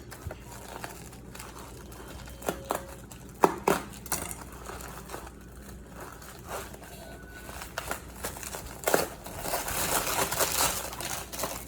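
Wrapping material crinkling and rustling as a packed crystal tower is unwrapped, with scattered small clicks and taps. The crinkling grows denser and louder about nine seconds in.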